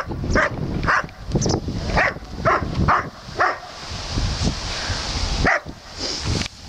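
A dog barking in a quick run of short, sharp barks about twice a second, with a pause and then one more bark near the end.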